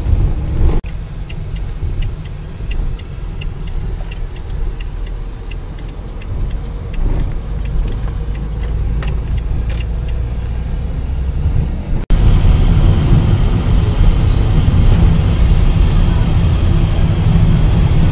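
Road noise inside a moving car: steady engine and tyre rumble with light rattling ticks. The sound breaks off abruptly about twelve seconds in and comes back as a louder, heavier rumble.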